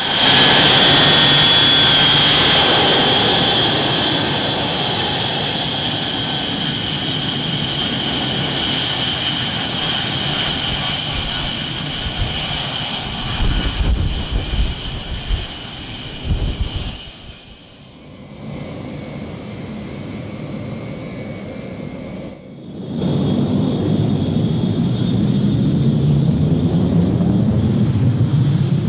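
Boeing 707 jet engines running: a loud high whine over a roar that slowly fades. After two abrupt cuts, a deeper jet roar builds up again near the end.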